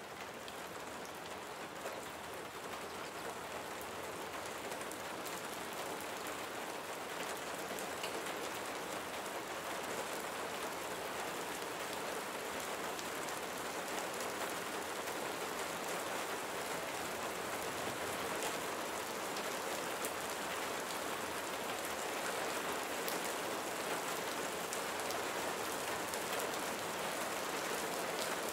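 Steady rain falling, a dense patter with scattered sharper drop ticks, growing slightly louder over the stretch.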